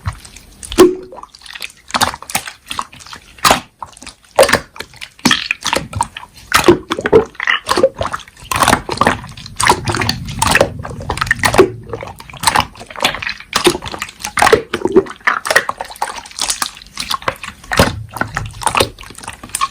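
Slime being squeezed and pressed by hand, with an irregular run of wet clicks, pops and squelches.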